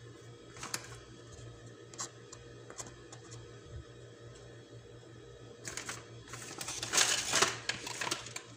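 Kitchen handling sounds as biscuits are laid into a dish: a few light clicks, then a louder stretch of crackling and rustling in the last few seconds, over a steady low hum.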